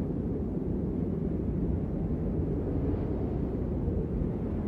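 Steady low rumble of thunderstorm weather outdoors, with no distinct thunderclap.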